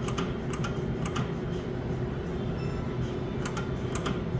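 Skill game machine spinning its reels: sharp electronic ticks about twice a second, a pause of about two seconds in the middle, then the ticking resumes, over a steady hum.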